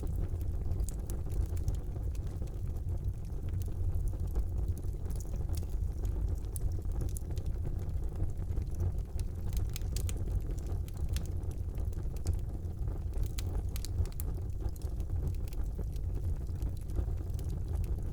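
Wood fire burning in a fireplace: a steady low rumble of the flames with many small sharp crackles and pops scattered throughout.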